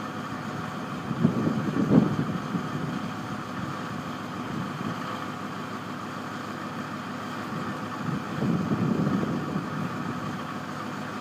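Yard tractor's engine running steadily while the end dump's steel box is hoisted up, with wind gusting on the microphone twice, about a second in and near the end.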